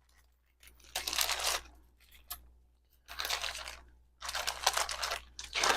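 Jewelry and small plastic bags being handled: a few short bouts of rustling and clicking, with one sharp click in the middle.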